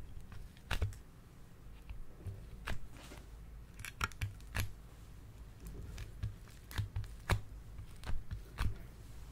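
Hands setting soft slime blocks into a glass tray among plastic pearls and sequins: a scattered series of about a dozen light, sharp clicks and taps.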